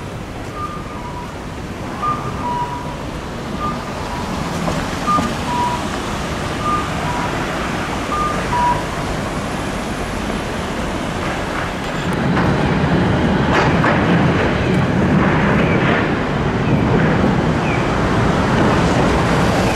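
Electronic pedestrian-crossing audible signal repeating short beeps that alternate between a higher and a lower pitch, stopping about nine seconds in. Steady city street traffic noise runs underneath and grows louder from about twelve seconds in.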